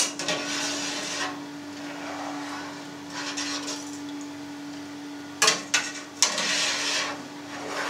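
Wire cheese harp being drawn through set curd in a stainless steel pan, cutting it into cubes: soft swishing strokes, with two sharp metallic knocks of the wire frame against the pan about two thirds of the way in. A steady low hum runs underneath.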